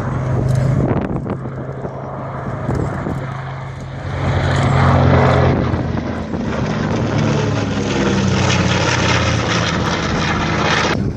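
The twin radial piston engines of a B-25 Mitchell bomber drone as it flies past. The sound is loudest about five seconds in, and the engine note then drops in pitch as the aircraft moves away.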